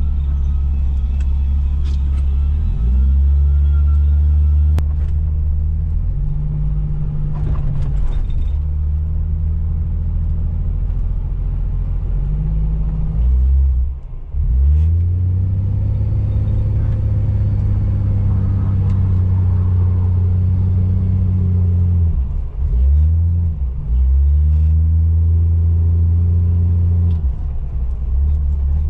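1975 Plymouth Duster's slant-six engine heard from inside the cabin, running under throttle. The revs drop sharply and pick up again twice, about halfway through and again near the end.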